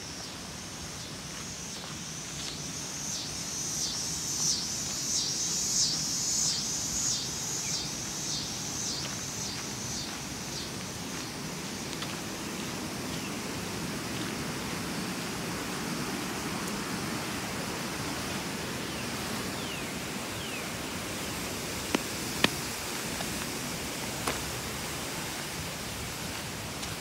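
Footsteps along an outdoor path at a steady walking pace, about one and a half steps a second, fading out after about ten seconds, over a steady hiss. A few sharp clicks near the end.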